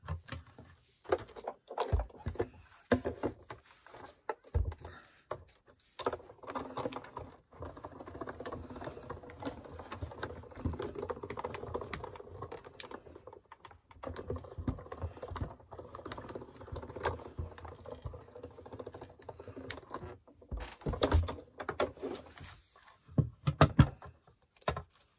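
Hand-cranked embossing machine: a few clicks and knocks as the plates and paper are set up, then a steady rattling crank for about seven seconds, a short pause, and about six seconds more as the stack is run through and back. Sharper knocks near the end as it comes out.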